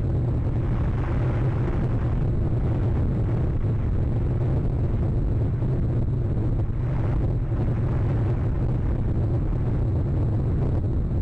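Storm wind buffeting the nest camera's microphone: a steady low rumble, with gusts swelling about a second in and again about seven seconds in.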